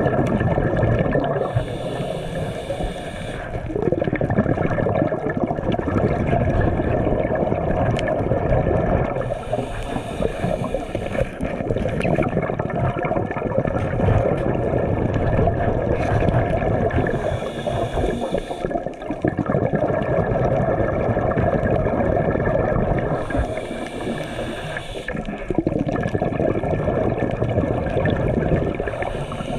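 Underwater sound heard through a GoPro housing: a steady low rush of water. Four times, about every six to eight seconds, a bubbling hiss lasts about two seconds, the rhythm of a diver's exhaled breath bubbling out.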